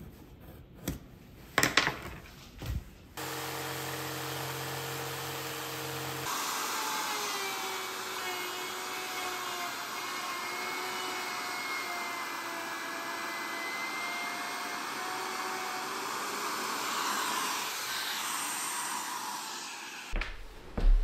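Plunge router running and cutting a slot in plywood, a high whine over a dense cutting noise, its pitch sagging a little under load; it stops abruptly near the end. First a few knocks, then a few seconds of steady motor hum as it starts.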